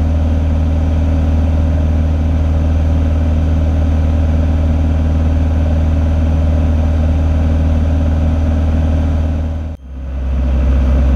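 Cessna 182's piston engine and propeller droning steadily, heard inside the cabin. Near the end the sound drops out for a moment and returns slightly lower in pitch.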